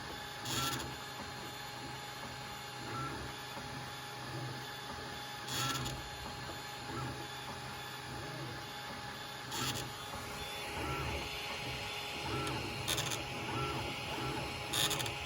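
Creality Ender 6 3D printer running with a grinding noise. A steady mechanical hum carries a constant whine and a soft repeating pulse, broken every few seconds by short, harsh grinding bursts; a higher hiss joins about two thirds of the way through.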